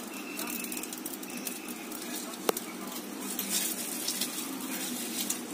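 Fire crackling in a clay stove as it is being lit, with one sharp snap about two and a half seconds in.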